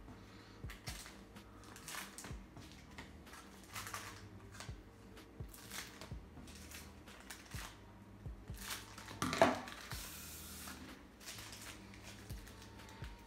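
Trading cards being flipped through one by one in the hand, each card sliding off the stack with a soft click or rustle, and one louder knock about nine seconds in.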